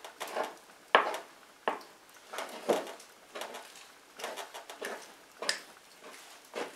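Wooden spoon stirring and beating a wet bread dough in a large bowl, the spoon knocking and scraping against the sides about once or twice a second in an uneven rhythm.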